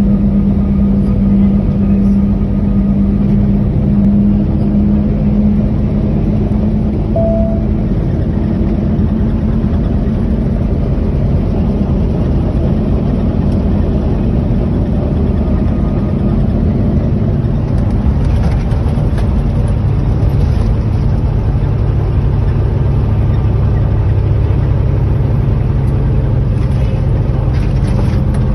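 Truck engine and road noise heard from inside the cab while driving at highway speed: a steady drone and rumble, its hum settling to a lower pitch about two-thirds of the way through.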